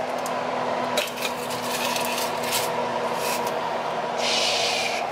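A foil-lined salmon tray being slid onto an oven's wire rack: a sharp clink about a second in, short rustles and scrapes of foil and metal, and a longer scrape near the end, all over a steady hum.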